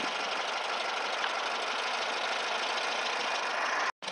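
A vehicle engine idling steadily, broken by a brief dropout near the end.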